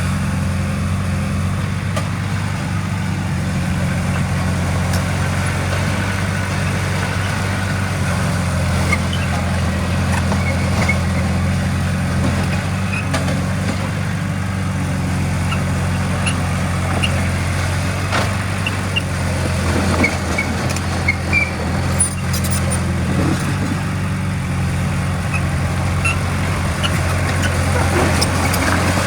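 Heavy diesel machinery engine running steadily with a deep hum, with scattered short squeaks and clicks over it.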